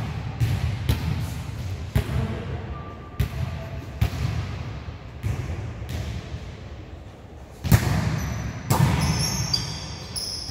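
Volleyball being hit and bouncing on a gym floor: a string of irregular sharp thuds, the loudest nearly eight seconds in, with short high squeaks near the end.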